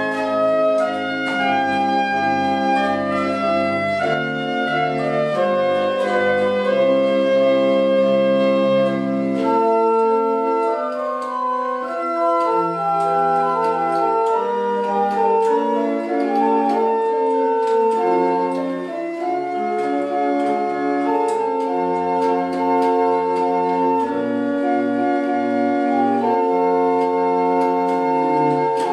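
Pipe organ playing sustained, held chords that move slowly from one to the next. A deep pedal bass sounds under the chords at first, drops out about ten seconds in, and comes back in short notes in the second half.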